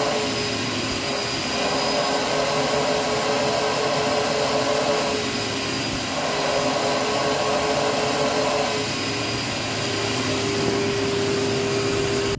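Vacuum motor of a mattress-cleaning machine running steadily with a humming note as its hand tool is drawn over the mattress fabric. The note eases and shifts briefly a few times, and the sound cuts off suddenly at the end.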